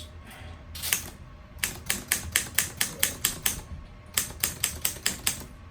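1947 Underwood SS full-size manual desktop typewriter being typed on: sharp typebar strikes against the platen in two quick runs of about five strikes a second, with a short pause between them, as a line of figures is typed.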